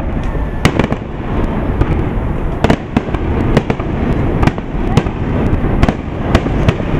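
Aerial firework shells bursting: continuous low booming with many sharp cracks and bangs at irregular intervals.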